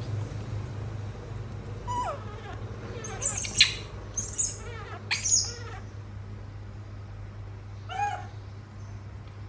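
Pet baby monkey giving short, high-pitched squeals: one about two seconds in, a loud cluster of shrill calls between about three and six seconds, and one more near the end. A steady low hum runs underneath.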